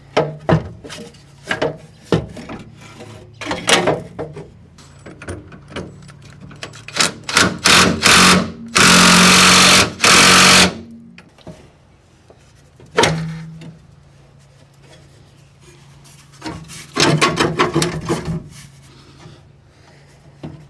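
Scattered metal knocks and clanks from work on an old exhaust under a van, with a Milwaukee cordless drill running steadily for about two seconds around nine seconds in. A quick run of rapid knocks comes near the end.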